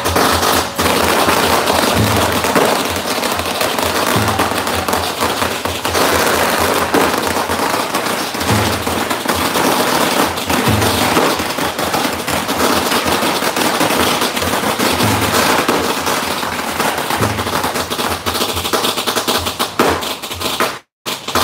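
A long string of firecrackers crackling in a rapid, unbroken rattle, with music and low thuds about every two seconds underneath. The sound drops out briefly near the end.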